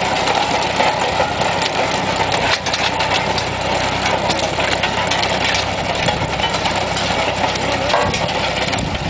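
A small tractor's engine running steadily while its rear-mounted chain trencher digs through soil, the chain and teeth adding a continuous clatter of small knocks.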